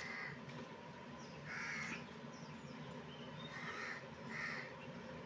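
A crow cawing about four times: once at the start, once about a second and a half in, and twice in quick succession near the end.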